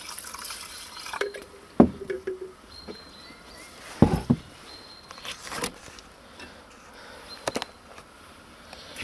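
Water poured from a plastic bottle into a cast-iron Dutch oven holding rice, followed by a few knocks and clanks as the iron pot is handled, the loudest about two and four seconds in.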